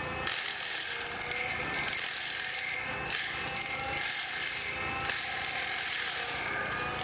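Heavy wood-processing machinery running, with a dense mechanical clatter and rattle over the noise of an engine.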